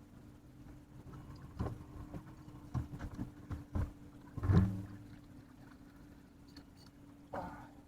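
A scattering of knocks and thumps, about a dozen, from gear being handled in a small fishing boat. The loudest comes about four and a half seconds in with a brief low ring. A faint steady hum runs underneath.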